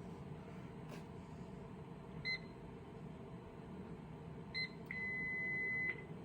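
Electronic beeps from an A/C service machine's control panel as its keys are pressed: two short beeps, then a steady beep about a second long near the end.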